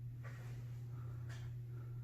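Steady low hum with two faint, brief rustling clicks, one about a quarter second in and one just past a second.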